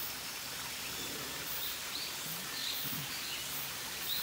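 Steady rush of a small waterfall, with a bird's short rising chirps repeating about once a second.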